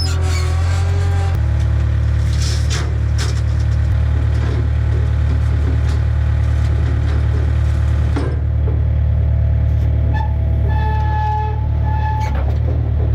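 A heavy engine running steadily, a loud low drone that shifts in pitch about a second in.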